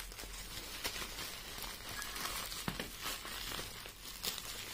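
Plastic bubble wrap crinkling as it is handled and pulled off a small cardboard box, with scattered sharp clicks.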